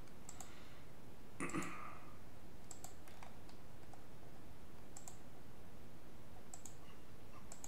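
Computer mouse clicking: about six single clicks a second or two apart over a steady low hiss, with one brief muffled sound about a second and a half in.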